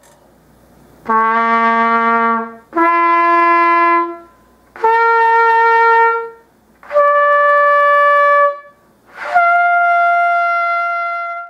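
Student-model trumpet playing up the harmonic series without the fundamental: the first five partials as five held notes, each rising in pitch, each about a second and a half long, with short breaks between them.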